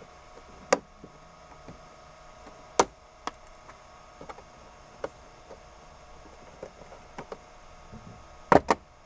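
Scattered sharp clicks and knocks of plastic interior trim at a Ford Bronco's windshield header being handled and pulled apart, with two loud clacks close together near the end. A faint steady hum runs underneath.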